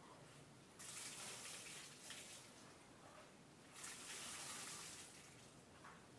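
Two bursts of steady, high-pitched hiss, each lasting about a second and a half: one starting about a second in, the other just before the four-second mark, both stopping abruptly.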